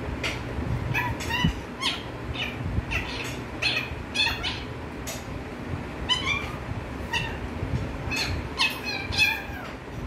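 Indian ringneck parakeet chattering: a quick string of short, squeaky chirps, some gliding up or down in pitch. It ends in a louder flurry of calls with one falling call.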